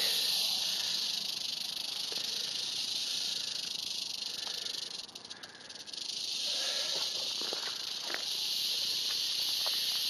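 Western diamondback rattlesnake rattling its tail in warning: a steady, high buzz that drops away briefly about five seconds in and then resumes.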